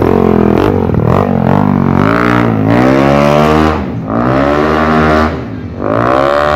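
Yamaha NMAX scooter with a 230cc big-bore engine revving hard as it pulls away under throttle. The pitch sweeps up and levels off three times, with brief let-offs about four seconds in and again a second and a half later.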